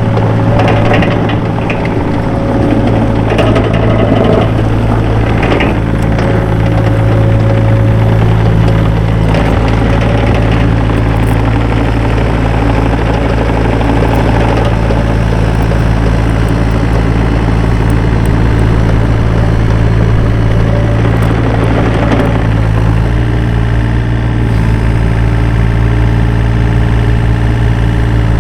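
Mini excavator's 28 hp Yanmar diesel engine running steadily. Its sound changes and settles a little lower about two-thirds of the way through.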